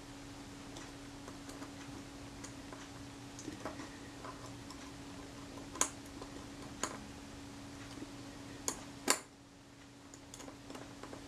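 Small metallic clicks and ticks of tweezers against the parts of a Kodak Retina IIIc shutter as a spring end is worked over a tab and hooked into place. The clicks are scattered, with a few sharper ones in the second half, over a steady low hum that stops about nine seconds in.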